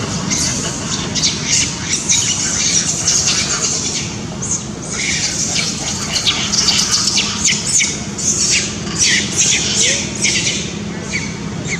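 Macaques screaming while chasing and fighting: many short, shrill shrieks in quick succession, coming thickest in the second half.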